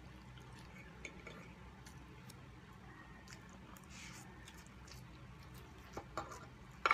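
Quiet eating sounds: a fork and spoon clicking against the serving board, with a soft slurp of instant pancit canton noodles about four seconds in and a few sharper clinks near the end.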